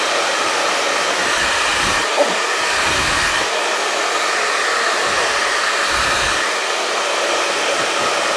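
Agaro Style Pro 2000 W hair dryer running on its higher fan speed (speed 2): a loud, steady rush of blown air, with a few brief low rumbles.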